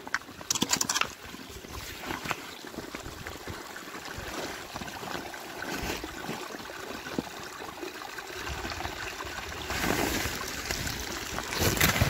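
Small stream of cold water trickling steadily. Clothing rustles and knocks as the camera is handled, loudest in the first second and again near the end.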